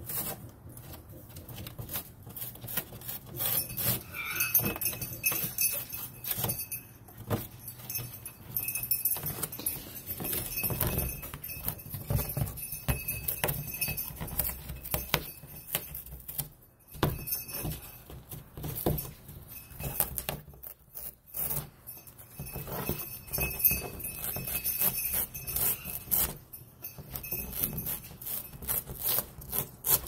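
Galah cockatoo chewing and ripping corrugated cardboard with its beak: dense, irregular crunching and tearing in bouts, with short pauses.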